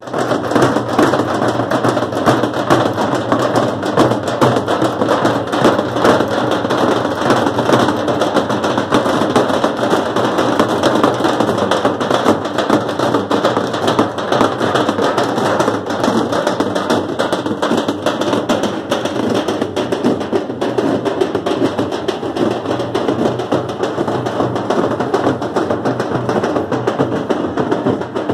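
A group of large double-headed bass drums beaten with sticks in a fast, dense, continuous rhythm, many drums at once.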